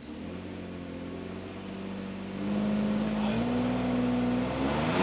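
Mercedes SL600's V12 engine running on a chassis dynamometer, with the throttle opened about two and a half seconds in and the engine note growing louder and rising slowly as it pulls in a low gear.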